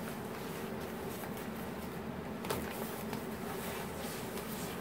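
A steady mechanical hum, with faint handling sounds and one light knock about halfway through as the unpowered massager is turned over in the hands.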